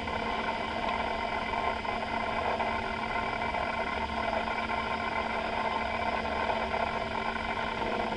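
Apple Macintosh SE/30 running as it boots: a steady hum from its cooling fan and hard drive, with several constant tones.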